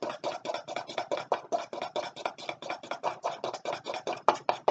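Thick icing being beaten briskly in a bowl: a utensil scraping and slapping through it in rapid, even strokes, several a second.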